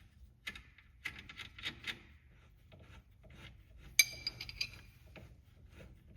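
Metal tool parts and bolts clinking and rubbing as a bushing press tool is taken apart by hand, with a sharp ringing clink of metal on metal about four seconds in.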